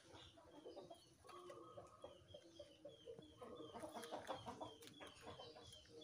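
Faint clucking of domestic chickens, heaviest about one and a half seconds in and around four seconds. Over it runs a steady series of short high chirps, about two to three a second.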